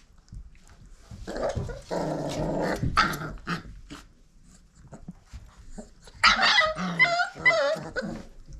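Five-week-old pit bull puppies growling for a couple of seconds, then yipping and whining near the end, with small scuffling clicks between.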